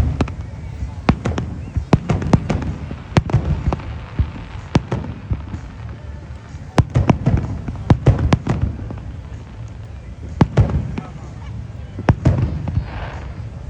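Fireworks going off: an irregular series of many sharp bangs, some in quick clusters, over a low rumble.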